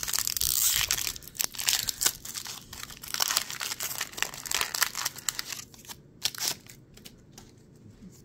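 Foil wrapper of a Pokémon card booster pack crinkling and tearing as it is handled and opened. The crackling is dense for about six seconds, then thins to a few faint ticks.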